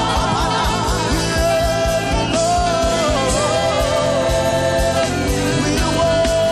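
Live worship band music: a sustained, wavering melody line over a steady drum beat and bass.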